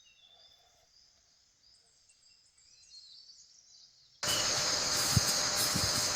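Outdoor ambience: faint bird chirps, then an abrupt switch about four seconds in to much louder rough noise with a steady high-pitched buzz and a few low knocks.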